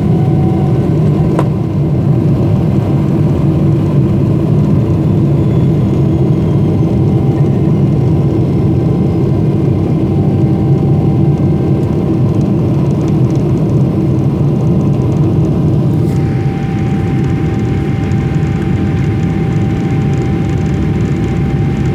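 Jet airliner cabin noise during the take-off run: a loud, steady engine rumble with a steady whine. About three quarters of the way through, a hiss joins the rumble.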